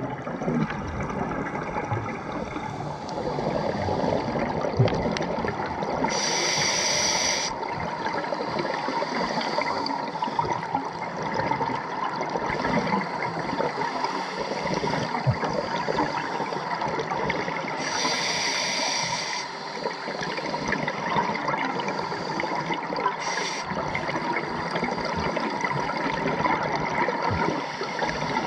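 Underwater sound of a scuba diver's regulator breathing: a steady bubbling rush of water and bubbles, broken twice by a brighter hiss lasting about a second and a half, roughly 12 seconds apart.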